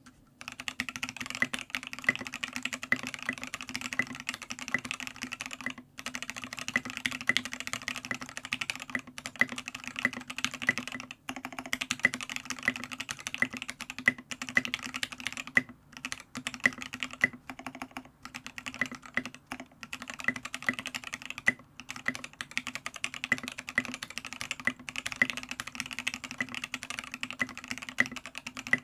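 Fast continuous typing on a Matrix Noah 65% keyboard: lubed C³Equalz Tangerine linear switches on TX 70 g springs with Tribosys 3204 lube, aluminium plate, 3 mm case foam and KAT Milkshake keycaps, on a desk mat. The typing stops briefly four times, about six, eleven, sixteen and twenty-two seconds in.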